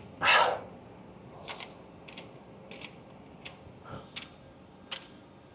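Electrical connector on an A320 engine-driven hydraulic pump being unscrewed by hand: one loud short scraping noise near the start, then a series of sharp clicks, about one and a half a second, typical of a circular connector's coupling ring ratcheting loose.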